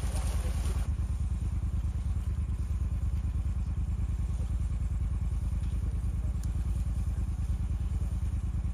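An engine idling: a steady low rumble with a fast, even pulse.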